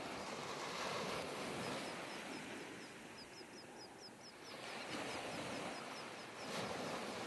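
Gentle surf washing over a beach, the noise swelling and easing, with a small bird chirping in quick repeated notes, about five a second, through the middle.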